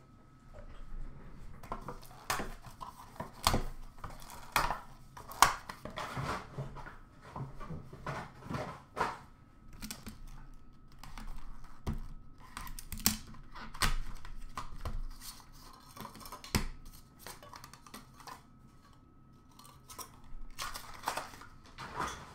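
Hockey card boxes and their packaging being handled and opened: irregular knocks, taps, scrapes and rustling, with a faint steady high hum beneath for most of it.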